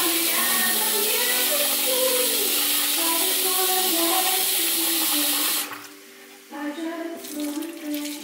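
Kitchen tap running hard into a stainless steel pot, rinsing cooked spaghetti in cold water. The steady rush of water stops suddenly about six seconds in.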